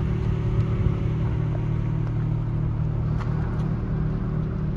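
2006 Infiniti FX35's 3.5-litre V6 idling steadily.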